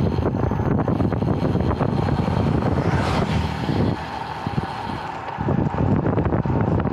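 Wind buffeting the microphone of a road cyclist's action camera at speed, a loud low gusting rumble that eases briefly about four seconds in.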